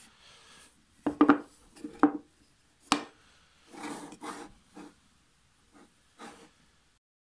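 Small wooden box handled on a wooden board: a few sharp wooden knocks about a second in, then the box slid and set down with lighter knocks and rubbing.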